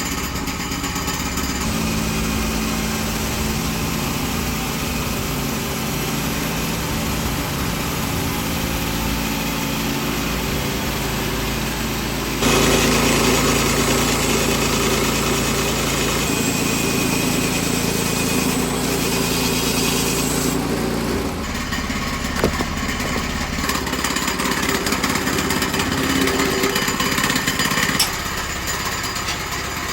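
The small gasoline engine of a portable bandsaw mill running under load as the band blade saws a log into a cant. The sound shifts several times and gets louder about twelve seconds in.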